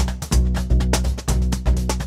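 Background music with a steady beat: quick, crisp percussive ticks over a deep, pulsing bass.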